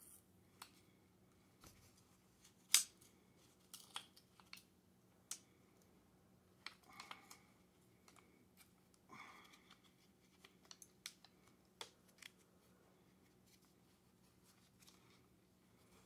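Faint, scattered metal clicks and ticks from a pedal wrench working a bicycle pedal whose thread is held with Loctite. The sharpest click is about three seconds in, and there are two short scraping rasps about seven and nine seconds in.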